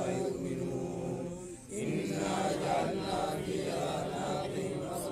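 A group of men chanting together in sustained voices, breaking off briefly about a second and a half in, then resuming.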